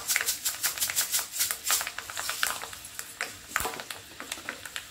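Hot oil crackling and popping in a small steel tempering pan holding mustard seeds, dry red chillies and freshly added fenugreek seeds. The pops come thick and fast at first, then thin out to scattered ones in the second half.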